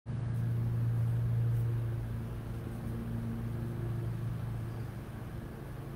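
Steady low mechanical hum: one deep tone with fainter overtones above it, easing slightly in level after about two seconds.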